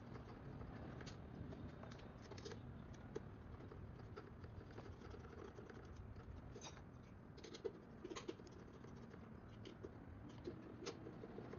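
Faint, scattered light clicks and taps of a hand screwdriver and small screws being worked into a drone's boom-end motor mount, over quiet room tone.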